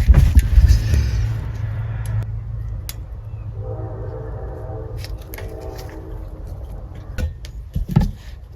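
Clicks and handling knocks from a wire stripper working on chandelier socket wires, heaviest in the first second, over a steady low hum. A steady pitched tone runs for about three seconds in the middle.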